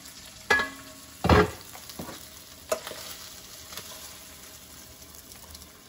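Chicken andouille sausage sizzling in olive oil in a frying pan, with a utensil knocking against the pan three times as it is stirred and scooped, the loudest knock about a second in.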